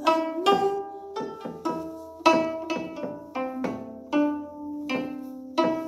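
Gayageum, the Korean plucked zither, played by hand: a slow melody of single plucked notes, about two a second, each ringing and fading before the next.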